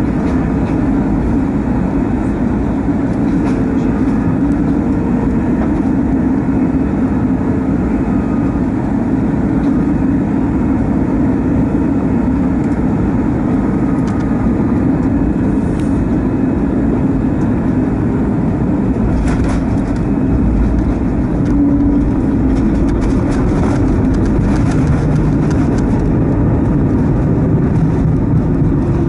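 Cabin noise of an Airbus A320neo with geared turbofan engines on final approach: a steady rush of engine and air. About twenty seconds in, the main wheels touch down and a deeper, slightly louder rumble of the landing roll takes over.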